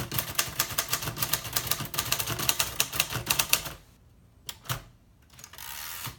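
1949 Royal Quiet De Luxe manual typewriter typing fast: a rapid run of keystrokes with the typebars snapping against the platen. The typing stops near four seconds in, followed by a couple of single clicks and a short sliding noise near the end.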